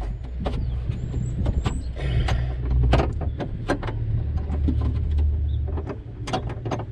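Irregular clicks and knocks of metal hinge parts and tools being handled against a Jeep Wrangler's door frame, over a low rumble.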